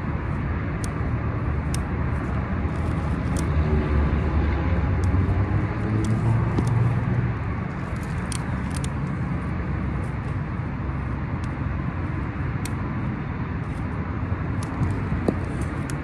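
Steady low rumble of road traffic, swelling louder about four to seven seconds in as a vehicle goes by, with faint short high ticks scattered through it.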